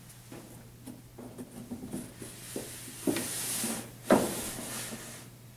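Large paper chart sheets rustling and sliding against the wall as they are handled and pressed flat, with a louder, sharper crinkle about four seconds in.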